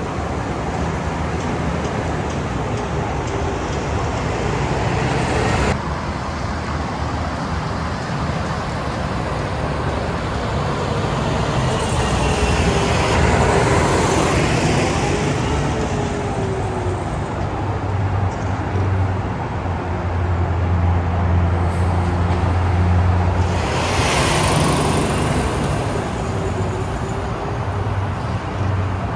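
Ready-mix concrete truck driving past: its diesel engine and tyres grow louder as it approaches, peak as it passes close by about halfway through, then fade as it pulls away, over a steady background of road traffic. The sound cuts abruptly about six seconds in.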